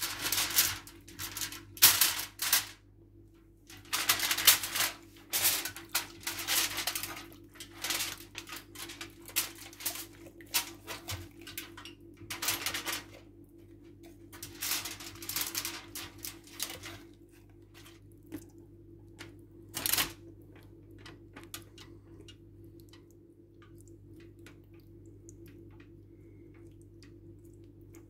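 Clattering, scraping and rustling from household items being handled during housework, in dense runs of short strokes, over a steady low hum. The strokes thin out after about 17 seconds, with one last sharp knock about 20 seconds in.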